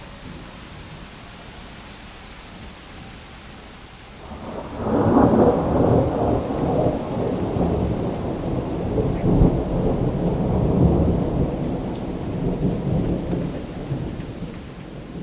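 Steady rain with a long roll of thunder that swells in about four seconds in and slowly fades near the end.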